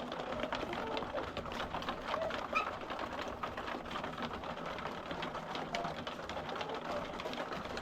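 A flock of laying hens feeding: many quick pecking clicks, with soft low clucking calls from the birds throughout.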